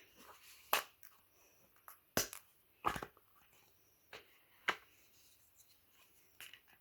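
Thick, jiggly slime squished and stretched in the hands, giving about six sharp clicking pops spaced over several seconds.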